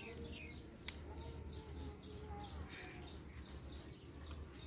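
Small birds chirping over and over, about three short high chirps a second, with a single sharp click about a second in.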